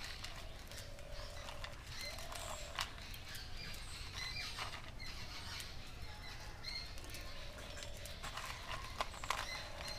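Oreo biscuits being snapped and broken into pieces by hand: scattered light cracks and crunches, with birds chirping in the background.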